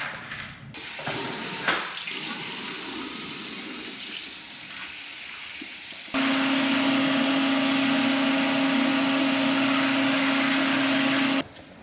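Water rushing, then a small electric motor switching on with a steady hum over running water for about five seconds before cutting off abruptly, like a small water pump running.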